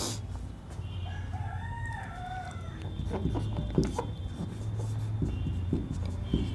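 A rooster crows once, about a second in: one long wavering call lasting about a second and a half. After that comes a series of short taps and strokes of a marker writing on a whiteboard, over a steady low hum.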